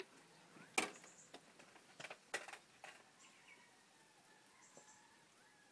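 Knife work on a chicken carcass being gutted: a few sharp clicks and taps, the loudest about a second in and a small cluster a little later, then quiet handling.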